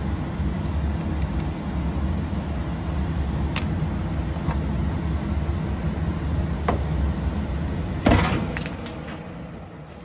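A steady low rumble with a couple of light clicks, then a loud metal clatter about eight seconds in as the gas furnace's lower sheet-metal access door is pulled off, after which the rumble fades away.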